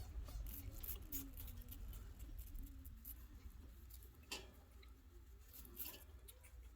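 Chinchillas chewing and nibbling a snack: faint, irregular small crunching clicks, with one sharper click about four seconds in.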